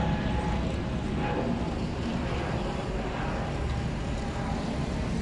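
Steady low rumble of an airplane passing overhead.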